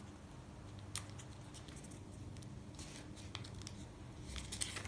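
Faint rustles and crisp clicks of a small sheet of paper being folded and creased by hand, with a short click about a second in and a quick cluster near the end.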